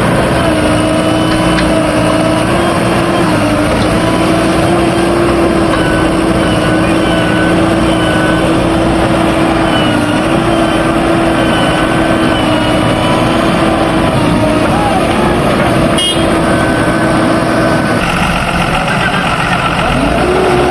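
Diesel engine of a backhoe loader running steadily, with a high whine that wavers slightly in pitch. There is a sharp click about three-quarters of the way through, and the pitch rises near the end.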